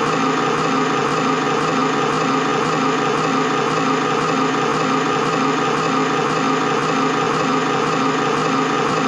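Old film projector running after the film has run out, its full upper reel still spinning: a steady, even mechanical clatter.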